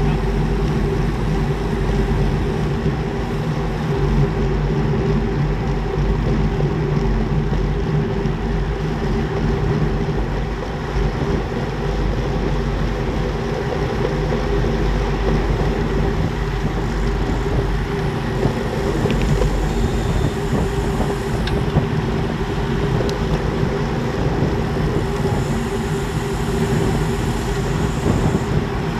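Steady wind and road noise on a bicycle-mounted camera's microphone while riding at about 44 km/h: air rushing past and tyres rolling on asphalt.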